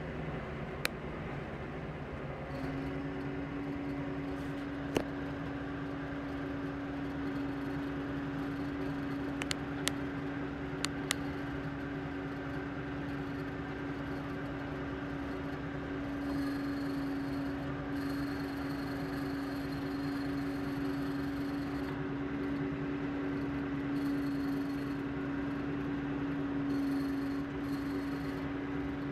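Claas Jaguar self-propelled forage harvester running under load, chopping crop and blowing it up its spout into a trailer, together with the engine of the tractor pulling the trailer alongside. A steady mechanical hum with a constant tone that sets in about two seconds in, and a few short clicks in the first half.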